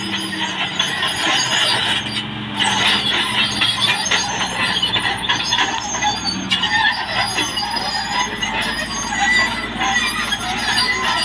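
CAT D6R XL bulldozer working, its diesel engine running steadily under a continuous high metallic squeaking and rattling from the steel tracks.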